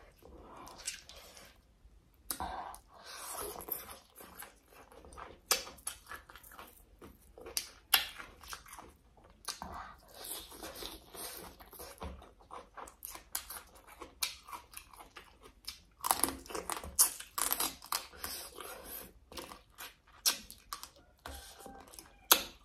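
A person chewing and crunching mouthfuls of papaya salad with squid, shrimp and crab: irregular crisp crunches and clicks, with several louder crunches scattered through.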